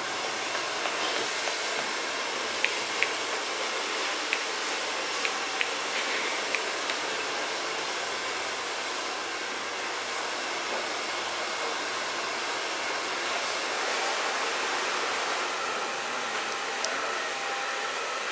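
A steady, even hiss fills the room, and about six sharp taps a few seconds in come from fingertips tapping on a face during a head and face massage.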